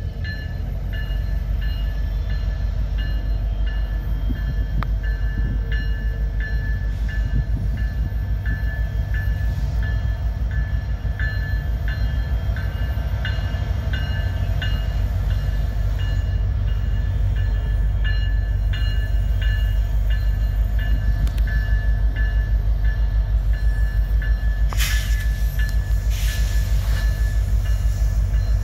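Diesel freight locomotives approaching with a low engine rumble that grows louder as the train nears, and a bell ringing in a steady repeating rhythm over it.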